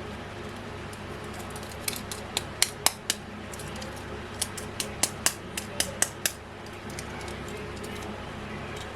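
Light, sharp clicks and taps of small metal and plastic diecast toy-car parts being handled as the model is taken apart. They come in two quick bursts, about two seconds in and again around four to six seconds in, over a steady low hum.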